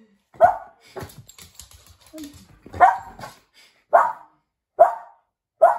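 Adult Cavalier King Charles spaniel barking up at a new puppy: five short, sharp barks at uneven intervals.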